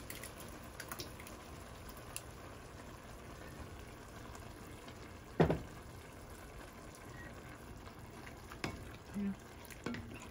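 Thick marinara sauce pouring and plopping out of a glass jar into an enameled Dutch oven of browned ground beef and onions, over a steady low hiss. A few light clicks and one sharp knock about five seconds in.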